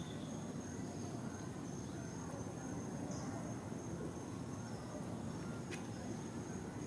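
Steady outdoor ambience: an insect's constant high, thin buzz over a low steady rumble, with a single faint click about six seconds in.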